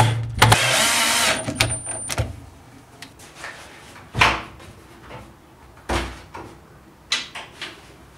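Cordless drill driving screws, running briefly twice in the first second or so. Then several separate wooden knocks and clunks as the hinged MDF miter saw bed is swung on its pivot and its front latches are worked.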